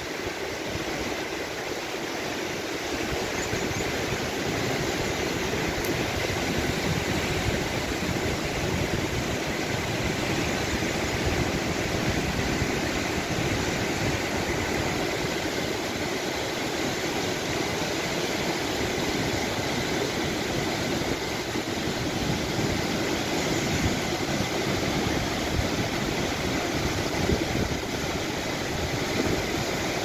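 Fast mountain river rushing over boulders and gravel, a steady roar of white water that grows a little louder over the first few seconds.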